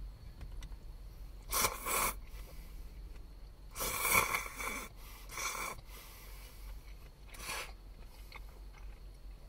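A person slurping soba noodles from a bowl of dipping sauce in several short noisy slurps, the longest and loudest about four seconds in.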